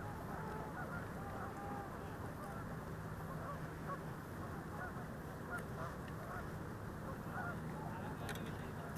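A flock of birds calling, many short honking calls overlapping without a break, with a low steady hum underneath from about three seconds in.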